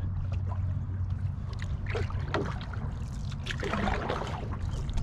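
Pirogue being worked through shallow marsh water: swishing and small splashes with scattered knocks and scrapes, over a steady low rumble.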